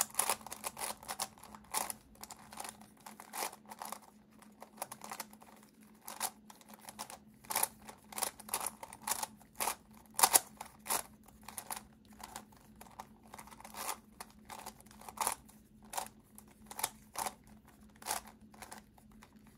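Hanoiminx plastic twisty puzzle being scrambled by hand: irregular clicks and clacks of its layers turning, a few per second.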